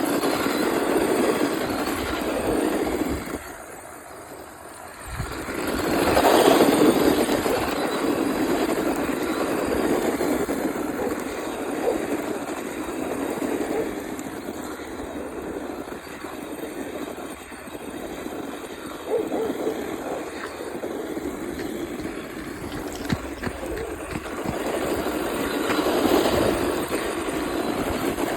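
Radio-controlled drift car being driven, its motor and sliding tyres rising and falling in loudness as it moves about. The sound drops away briefly about four seconds in, then surges back.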